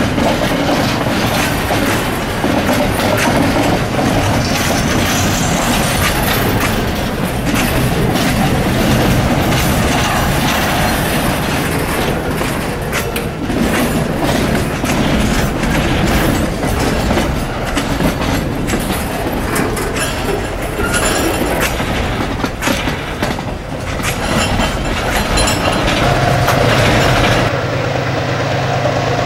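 Freight train wagons rolling past close by: a steady rumble of steel wheels with clickety-clack over the rail joints. Near the end it gives way to the steady low drone of an approaching diesel locomotive.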